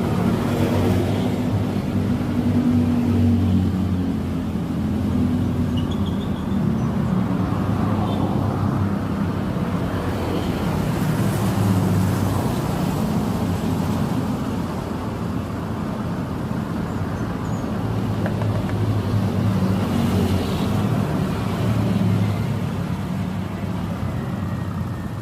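Continuous road traffic noise, with vehicle engines swelling and fading several times as they pass.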